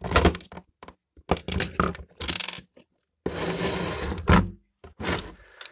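Handling noise from taking apart an electric shower: clicks, scraping and knocks of hard plastic parts as the last screw is undone and the plastic flow regulator is worked out of the unit, with the loudest knock about four seconds in.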